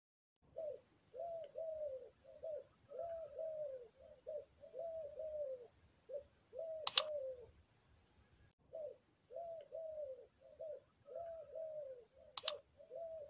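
A steady, high, cricket-like insect trill with a brief break past the middle, over short low falling calls repeated two or three times a second. Two sharp mouse-click sounds, about seven seconds in and near the end, from a subscribe-button animation.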